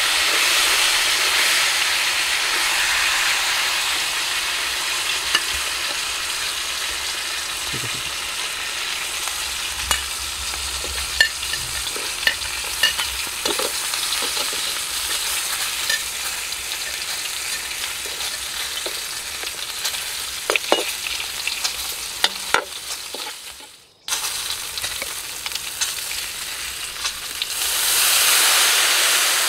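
A whole duck sizzling as it fries in a wok, with sharp clicks and scrapes of a metal spatula against the pan now and then. Near the end lemon-lime soda is poured into the hot wok and the sizzle swells to a louder hiss.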